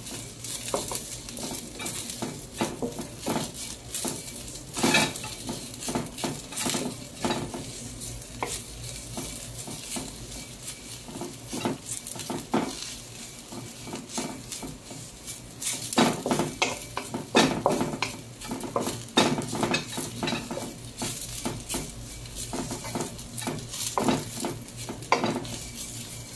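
Wooden spatula stirring and scraping dried molokhia (jute mallow) leaves and garlic cloves around a non-stick pan as they fry, with irregular scrapes and knocks over a sizzle.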